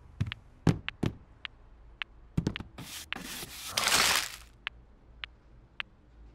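Cartoon foley: a scatter of light taps and knocks, then about a second of paper rustling roughly three seconds in as a sheet is pulled up off a stack of papers.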